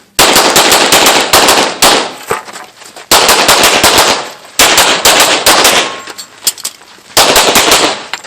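Pistol fired in quick runs of shots close by, with brief pauses between the runs, loud and sharp.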